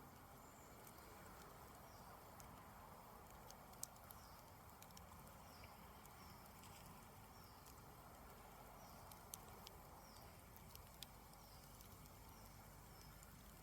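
Campfire burning down, faint, with a few sharp crackles from the wood. A faint high chirp repeats about once a second.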